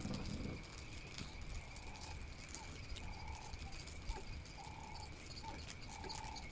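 Faint outdoor morning ambience: an animal calling over and over in short notes of one steady pitch, some clipped and some drawn out, over a faint steady high tone.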